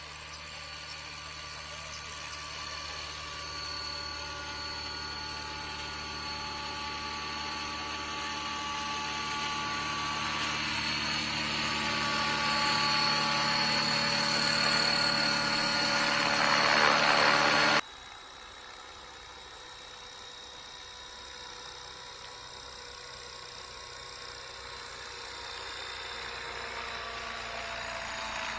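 600-size scale RC helicopter flying in and landing: the rotor and drivetrain whine grows steadily louder as it comes in low. About eighteen seconds in it drops sharply and runs on quieter and steady, its pitch sinking slightly near the end.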